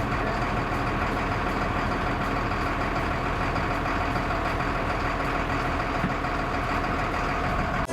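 Fire engine running steadily at idle, a constant engine drone with a held whine over a wide hiss. It cuts off suddenly at the end.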